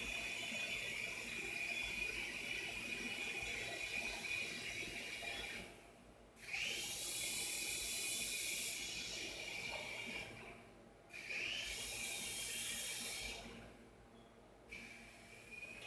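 Small toy RC helicopter's electric rotor motors running with a high-pitched whine and hiss. The whine cuts out three times, about six, ten and fourteen seconds in, as the throttle is dropped, and each time it spins back up with a rising pitch.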